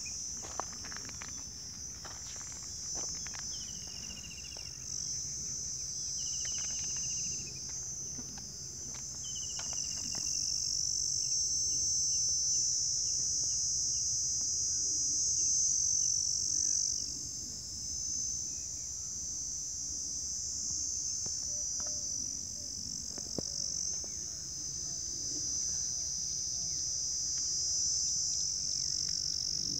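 Insects chirring in a loud, steady, high-pitched chorus. A few short falling chirps come over it in the first ten seconds or so.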